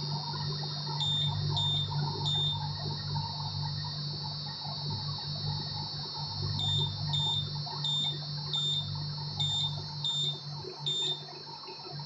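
Prestige PIC 6.0 V2 induction cooktop running with a steady high-pitched whine over a low hum, while its touch-panel buttons give short beeps as they are pressed: three about a second in, then seven more from about halfway through.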